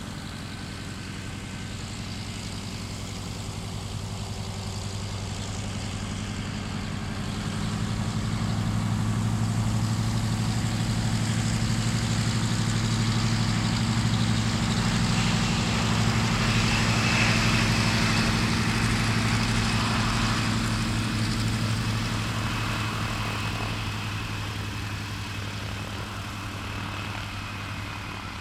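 Douglas C-47 Skytrain's twin Pratt & Whitney R-1830 radial engines running at low taxiing power as the aircraft taxis past: a steady, throbbing low drone that swells about a quarter of the way in, is loudest a little past halfway, then fades as it moves away. A thin high whine joins the drone about halfway through.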